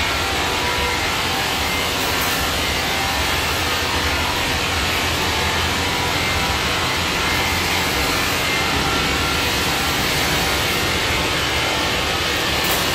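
150-litre stainless-steel double cone blender running, its electric drive giving a steady mechanical hum and whir as the cone turns.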